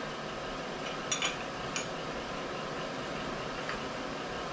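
A few faint metal clicks of a short wrench on the Brown & Sharpe mill's vertical-head bolts as they are snugged up, about a second in and again just before two seconds, over steady shop background noise.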